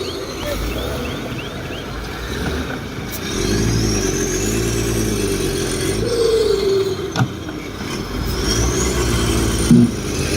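Heavy construction machinery's diesel engine running and revving up and down in cycles, with a whine that rises and falls alongside it. A sharp click comes about seven seconds in and a knock near the end.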